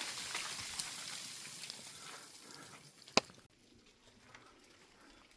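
Icy snow and meltwater pattering down from thawing pine trees: a fine crackling patter with scattered small ticks that fades away, one sharper tick about three seconds in, then it drops off abruptly to a much quieter background.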